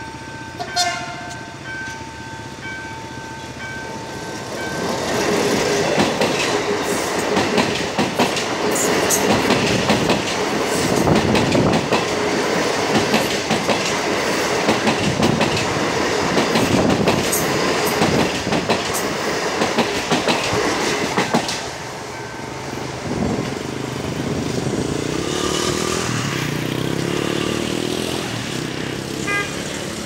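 CSR/Mitsubishi electric multiple unit passing close by at a level crossing: the rumble of the train and its wheels clacking over the rail joints, loud for about sixteen seconds, then dying down. At the start a level-crossing warning signal is ringing, and there is a short horn blast about a second in.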